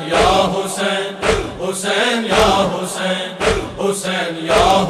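A chorus of men chanting a noha refrain in unison over rhythmic matam, hands striking bare chests together at a steady beat of about two strokes a second.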